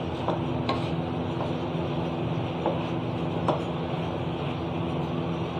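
A spatula scraping and knocking against the sides of a metal pot as fried shredded cabbage and mince are stirred, a few sharp ticks over a steady low hum.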